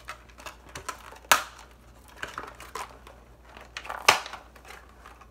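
Scissors snipping the plastic ties that hold a doll in its packaging, among light clicks and plastic rustling. Two sharp snips stand out, about a second in and about four seconds in.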